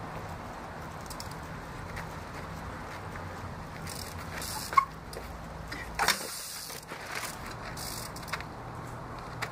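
Trials bicycle hopping and balancing on a boulder: a sharp, loud clack about halfway through, with a shorter clatter of the bike about a second later and a small click near the end, over a steady low background hum.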